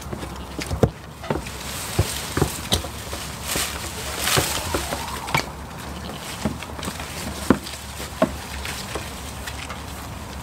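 Goats clambering on upturned hard plastic tubs: irregular sharp knocks and taps of hooves, with a spell of rustling around the middle.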